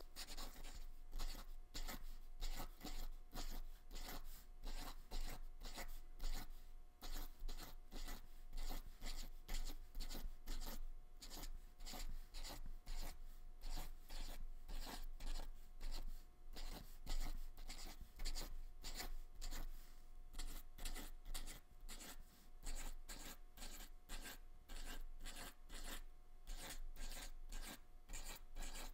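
Fine-point black marker drawing over dried acrylic paint on paper, a dry scratching in many short, irregular strokes.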